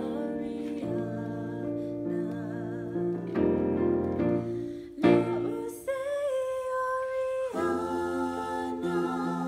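Electronic keyboard playing slow, sustained chords under a woman singing a slow ballad with vibrato. Partway through, the chords drop out for about a second and a half while a single note holds, then they come back in.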